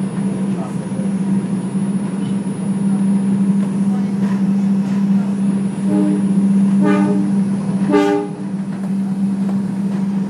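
R142 subway train running at speed, heard from inside the car: steady rumble with a constant hum. About six seconds in the horn sounds, three short toots about a second apart.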